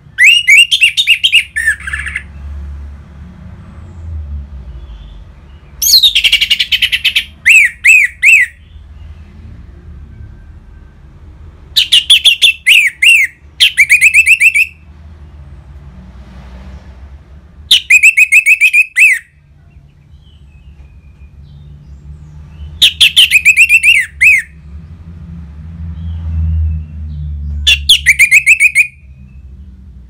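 Orange-headed thrush singing loud, full song in short phrases of rapid repeated and sweeping notes. Six phrases come about every five to six seconds, with a faint low rumble underneath.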